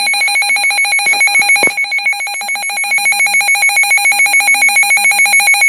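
Loud electronic alert tone pulsing rapidly and evenly, about seven pulses a second, on several fixed pitches at once, as at the start of an emergency alert broadcast.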